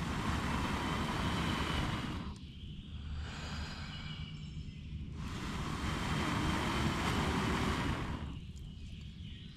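A person blowing long breaths onto campfire coals to rekindle the fire under freshly laid sticks: two rushing blows, one of about two seconds and another of about three seconds starting some five seconds in.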